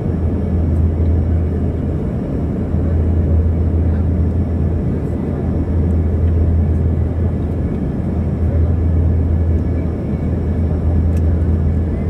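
Steady drone of a jet airliner's cabin in flight: engine and airflow noise as an even, low rumble.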